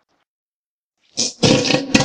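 Seagull calls. A first call comes about a second in, followed at once by a quick run of repeated calls.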